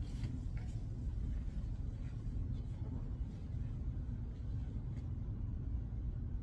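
Steady low rumble of room noise in a billiard hall, with a few faint clicks, the clearest about five seconds in.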